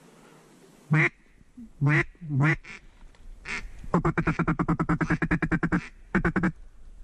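Duck quacking close by: a few single quacks, then a rapid run of short quacks lasting about two seconds, then another short burst.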